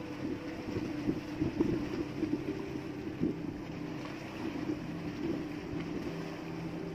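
A small engine on the fishing boat hums steadily. Irregular knocks and rustles from the handline being hauled in by hand over the bamboo outrigger come over it, most of them in the first half.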